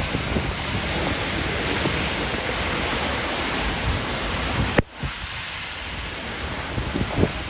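Heavy rain pouring onto a wet street, a steady hiss. About five seconds in there is a sharp click and the sound drops suddenly to quieter rain.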